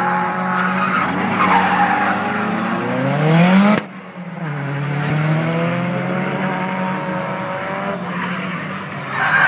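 Turbocharged KA24 four-cylinder of a drifting Nissan 240SX S14 revving hard with tyre squeal. A steep rising rev breaks off abruptly a little under 4 s in, then the engine revs up and eases off again through the rest of the slide.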